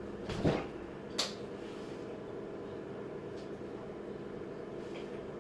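Steady low room hum, with a short soft thump about half a second in and a sharp click just after one second.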